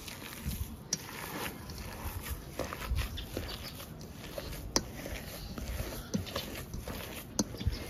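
Hands squishing and kneading mashed potato filling in a stainless steel bowl, with irregular sharp clicks scattered through.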